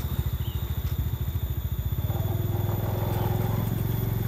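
Small motorbike engine running at low speed close by, a steady low pulse.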